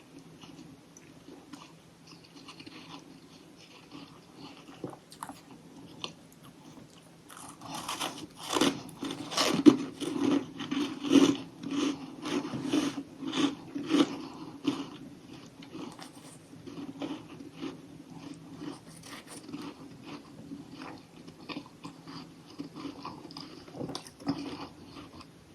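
A person biting and chewing crunchy chunks of humidifier freezer frost close to the microphone. The crunching is quiet at first, grows loud and dense from about 7 to 15 seconds in, then settles into lighter, scattered crunches.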